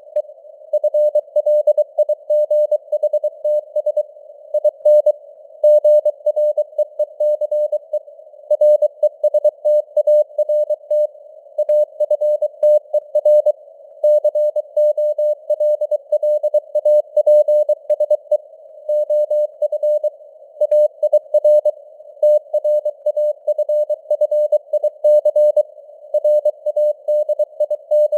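Morse code (CW) at 23 words per minute: a single steady tone keyed on and off in dots and dashes, over a narrow band of hiss that simulates radio noise, with the signal strength varying (QSB).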